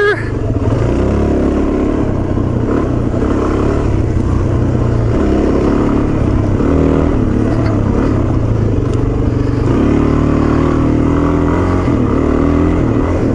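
Single-cylinder dual sport motorcycle engine running as the bike rides along a dirt trail, its note rising and falling with the throttle.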